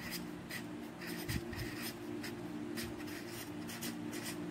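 Pen writing on a notebook page: a run of short, irregular scratchy strokes as figures are written out, over a faint low steady hum.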